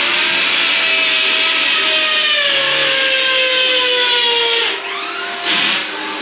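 Steel shovels scraping and dragging through sand and gravel being hand-mixed for concrete: a long, harsh rasp with a faint, slowly falling squeal. It breaks off just before five seconds in, and a shorter scrape follows about half a second later.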